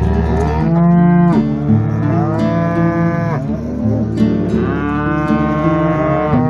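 Hereford cattle mooing: about three long, drawn-out moos, each falling in pitch at its end.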